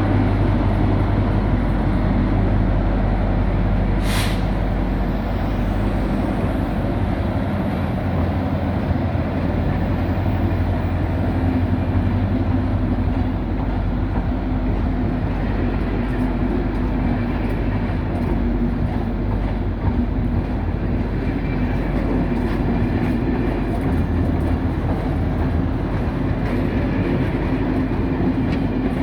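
Diesel-electric locomotive DE 22011 running with its passenger train: a steady loud rumble of engine and wheels. A brief sharp noise comes about four seconds in, and a steady hum sets in from about eleven seconds.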